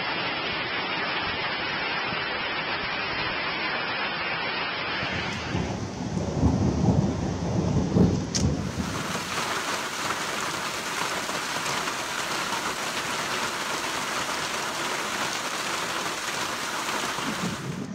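Heavy rain falling steadily. About six seconds in, a peal of thunder rumbles for a couple of seconds and ends in a sharp crack, then the heavy downpour carries on.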